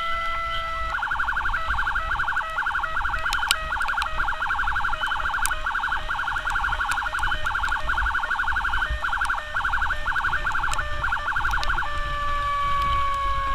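Ambulance siren sounding close by: a held wail tone switches about a second in to a fast warbling yelp, then near the end back to a slow wail that falls in pitch, over low engine and wind rumble.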